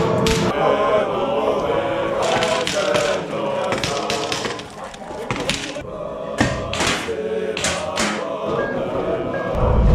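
Music with a choir singing sustained chant-like lines, cut by a number of sharp cracks spread unevenly through it.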